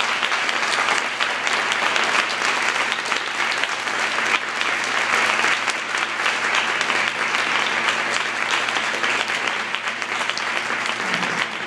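A large audience applauding, a dense steady clapping that goes on without a break, greeting the end of a talk.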